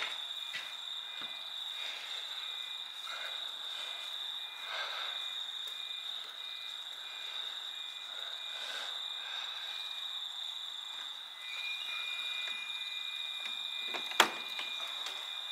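Steady high-pitched insect chirring with a second, pulsing chirp under it, over faint knocks of hands working at the engine's fuel rack linkage. A single sharp click sounds near the end.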